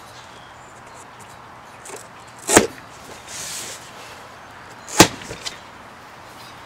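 Two sharp cracks from a cardboard shipping box being worked open, about two and a half seconds apart, with a short rustle between them.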